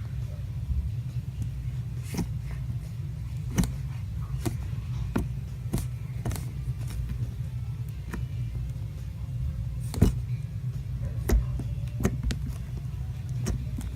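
Hands pressing and poking a clay slime, giving small sharp clicks and pops every second or so, over a steady low hum.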